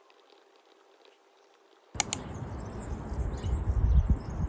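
Faint scratching and ticking of a pen writing on paper, then a sharp double click about two seconds in, followed by wind buffeting the microphone with faint high chirping above it.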